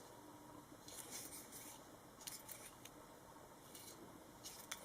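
Near silence, with a few faint rustles and light ticks from a small plastic USB adapter and its packaging being handled.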